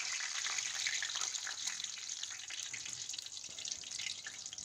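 Curry leaves sizzling and crackling in hot oil, a dense hiss of fine pops that slowly dies down toward the end as the leaves fry crisp.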